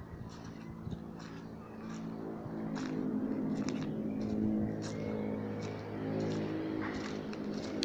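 A motor engine running steadily, getting louder about two seconds in and then holding, with scattered light clicks and taps over it.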